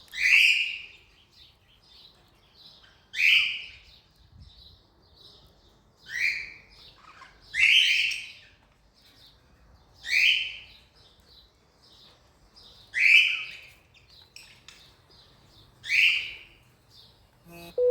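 Cockatiels calling: seven loud, shrill calls at intervals of two to three seconds, with quieter chirping between them.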